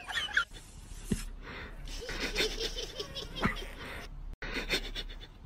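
A person laughing, a quick run of short laughs.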